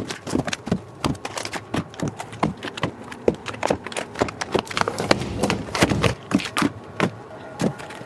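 Plastic-wrapped spools of 3D-printer filament being slid onto wooden dowel rods: crinkling plastic wrap and a quick, irregular run of clacks and taps as the spools knock against the rods and each other.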